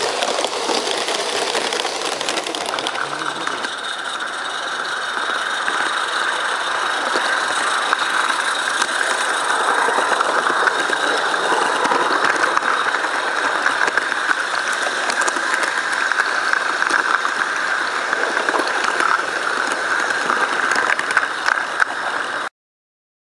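Live-steam 16mm-scale garden railway trains running close by: a steady hiss with a constant clicking and rattle of small carriage wheels over the track. It cuts off suddenly near the end.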